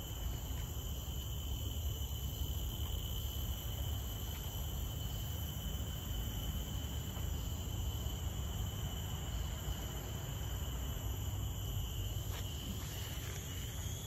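Steady chorus of insects in the forest: several continuous high, shrill tones layered together, with no pauses. Beneath them runs a steady low rumble.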